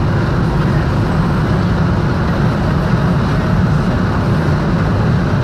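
Vehicle engine and tyre noise heard from inside the cabin while cruising on an expressway: a steady low rumble that does not change.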